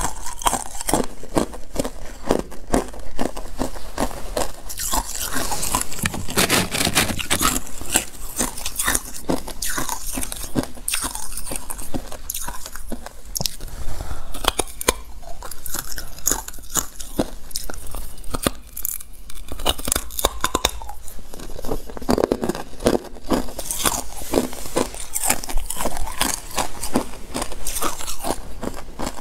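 Hard clear ice being bitten and chewed: a continuous run of sharp crunches and cracks, several a second, as the chunks break up in the mouth.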